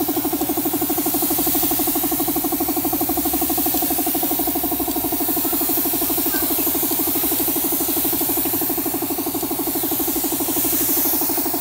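Air compressor running steadily with a fast pulsing drone, along with the hiss of a siphon-feed spray gun spraying a finish coat.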